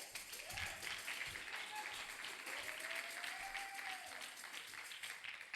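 A congregation applauding, with many hands clapping steadily.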